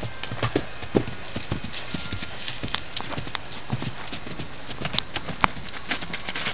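Hooves of a loose horse trotting and cantering on grass and dirt: irregular dull thuds of hoofbeats, with two sharper clicks about five seconds in.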